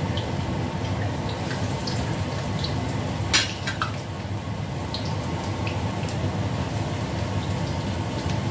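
Tempe frying in hot oil in a wok: steady sizzling with scattered small pops over a low hum, and one sharp clink a little over three seconds in.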